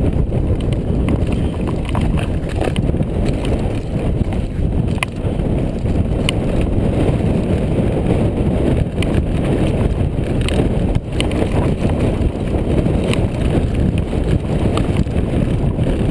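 Mountain bike descending a rough rocky trail: a steady loud rumble of tyres and suspension over stones, with frequent sharp knocks and rattles from the bike and rocks striking it.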